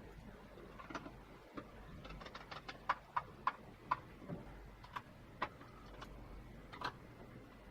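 A dozen or so light, irregular clicks and taps of small screws and a screwdriver against the plastic frame of an Amiga 500 keyboard being screwed back together, coming most thickly in the middle.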